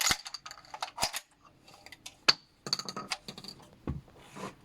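Metallic clicks and clinks of a semi-automatic shotgun being handled, its action worked to clear a jammed shell. The loudest is one sharp click about two seconds in, and there is a duller knock near the end.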